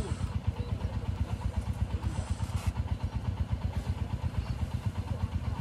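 An engine running steadily at idle, with a fast, even low pulsing.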